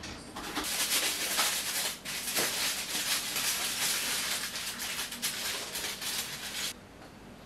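Aluminium foil crinkling and crackling as it is handled and pressed around the outside of a springform cake pan. It is a continuous crackling rustle that stops abruptly near the end.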